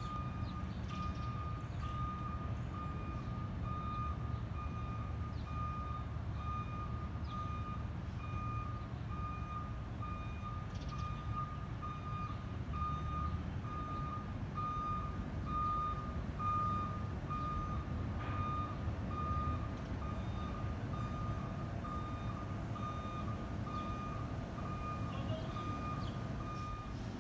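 Vehicle backup alarm beeping steadily, about once a second, over a low engine rumble from emergency vehicles standing at the scene.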